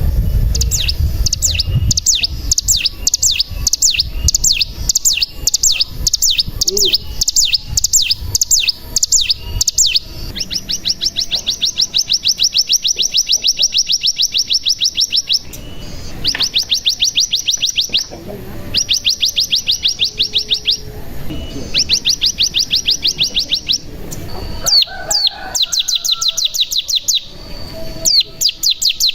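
Ciblek gunung (a mountain prinia) singing: a run of quick, high repeated notes, then long, very fast buzzing trills (the "bren") that come in bursts of a few seconds with short breaks between them.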